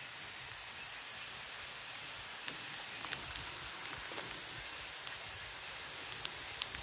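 Steady, even hiss of outdoor night ambience during a thunderstorm, with a few faint clicks.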